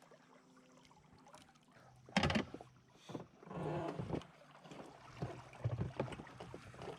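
Water lapping and sloshing around a float boat while a hooked smallmouth bass is played on a fly rod. About two seconds in there is one short, loud burst of noise.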